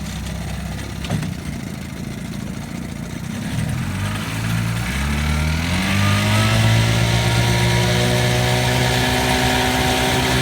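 1954 Evinrude Fleetwin 7.5 hp two-stroke outboard motor running slowly, then throttled up: about four seconds in its pitch climbs over a couple of seconds, and it then holds a steady higher speed. A single click comes about a second in.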